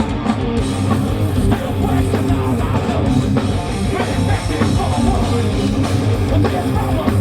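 Heavy metal band playing live: distorted electric guitars over a fast drum kit, loud and continuous.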